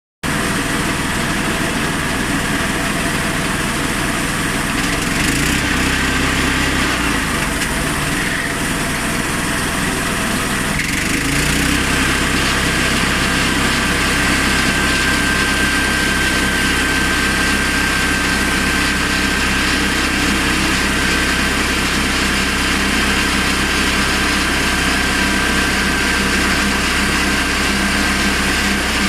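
Honda GX390 single-cylinder petrol engine on a portable sawmill running steadily. Its note changes about five seconds in and again about eleven seconds in, after which a steady high whine runs above the engine.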